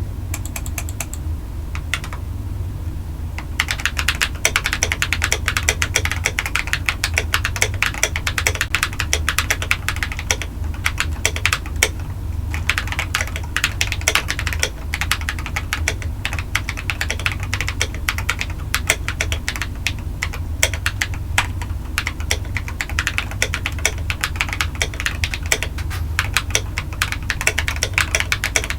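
Typing on a full-size Redragon K551 mechanical keyboard, modded with tape, foam and tuned stabilisers, fitted with lubed Akko Rose Red linear switches and MT3 keycaps. A few scattered keystrokes give way to fast, continuous typing about three and a half seconds in, over a steady low hum.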